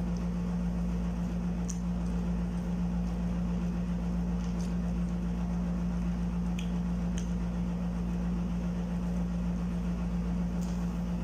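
Steady low machine hum at a constant pitch, with a few faint soft clicks of chewing scattered through it.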